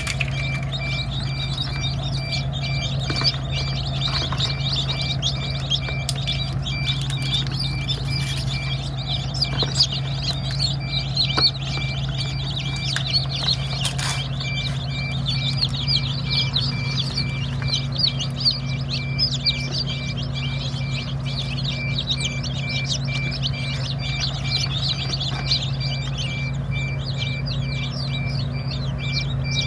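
Many small birds chirping rapidly and continuously over a steady low hum.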